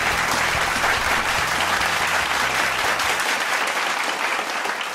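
Applause, with the tail of intro music underneath; the music's bass drops out a little over three seconds in.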